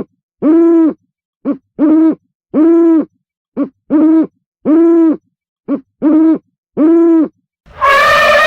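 An animal's hooting calls, repeated in phrases of one short note followed by two longer, arched notes, each phrase about two seconds apart. Near the end a different, harsher loud call cuts in.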